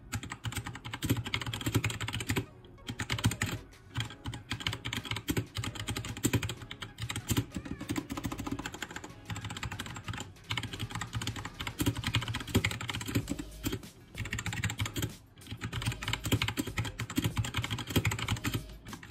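Fast typing on a T60 mechanical keyboard with red linear switches: a dense, continuous run of keystroke clacks, broken by a few short pauses.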